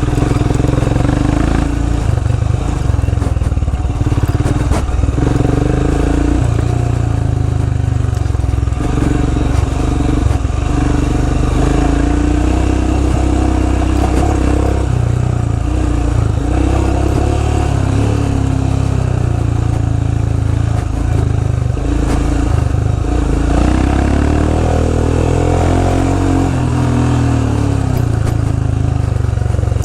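Royal Enfield Himalayan's single-cylinder engine running as the motorcycle is ridden slowly over an off-road trail. The engine note rises and falls with the throttle.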